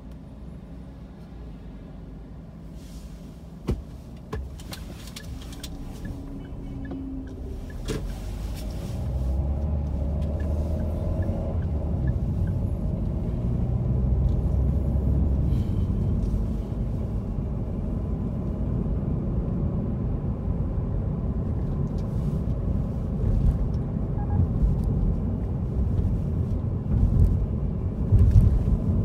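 Car cabin road noise: quiet while the car stands still, then a low engine-and-tyre rumble builds as it pulls away about nine seconds in and carries on steadily while driving. A couple of sharp clicks come a few seconds in.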